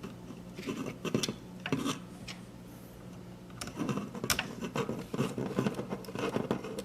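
Small clicks and scraping rustles of hands working electrical wires and a plastic wire nut, joining the two black wires of a dimmer switch, with the handling getting busier in the second half. A faint steady low hum runs underneath.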